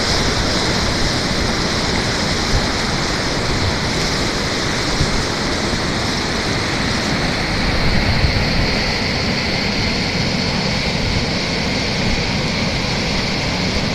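A river in flood rushing past the bank and spilling over a low-head dam: a steady, even rush of water.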